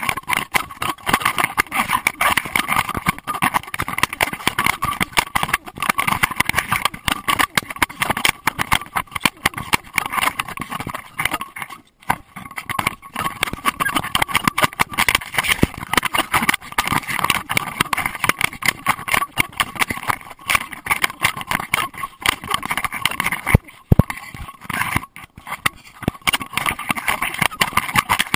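Rapid, continuous rattling and knocking of a GoPro Hero2 in its waterproof housing, jostled on a Doberman's collar as the dog moves, easing briefly twice.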